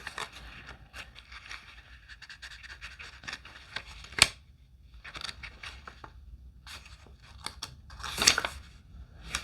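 Paper handling: oracle cards and card stock scraping and rustling, with many small ticks, a sharp tap about four seconds in and a louder rustle about eight seconds in.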